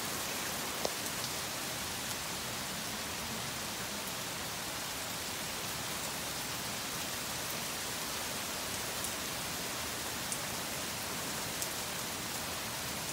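Steady rain falling during a thunderstorm, with a few sharp ticks scattered through it; no thunder.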